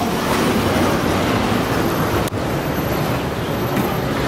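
Steady rushing, rumbling noise of a moving chairlift ride, with a short dip a little over two seconds in.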